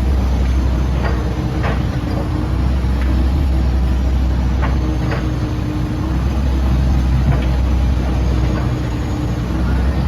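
Komatsu PC78UU-8 excavator's diesel engine running steadily, with a faint wavering whine and a few short clanks and knocks from the machine working.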